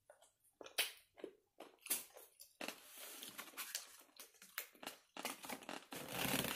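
Close-miked eating sounds: short wet clicks and crunchy chewing noises, with a longer stretch of rustling near the end.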